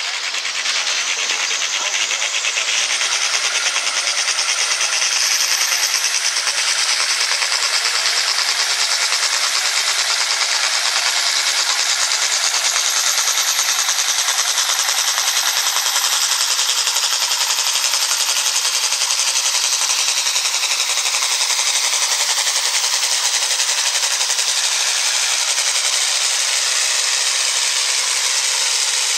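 Turbocharged International Harvester farm tractor's diesel engine running flat out under load while pulling a weight-transfer sled: a loud, steady, rapid clatter. A high whine climbs in pitch over the first few seconds and eases down later in the pull.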